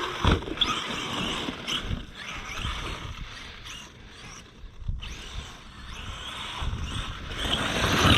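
Arrma Outkast 8S radio-controlled truck's brushless motor and drivetrain whining as it speeds up and slows over loose dirt, with a few short knocks from the chassis and tires. It dips briefly in the middle and grows louder near the end.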